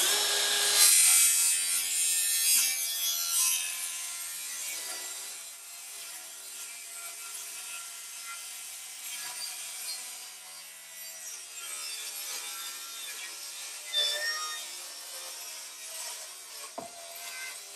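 DeWalt cordless circular saw cutting through a grooved wood panel, its motor whining over the rasp of the blade. The cut is loudest in the first few seconds, and the motor winds down near the end.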